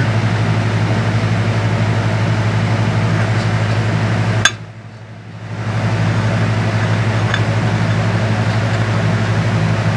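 Steady low machine hum of shop background noise. A sharp click comes about four and a half seconds in, the hum drops away for about a second, then swells back to its steady level.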